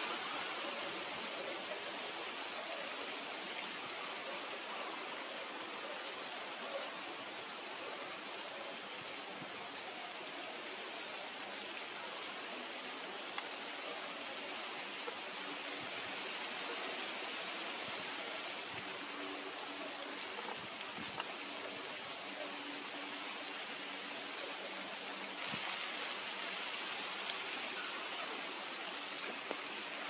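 Steady hiss of light drizzle falling, with a few faint ticks.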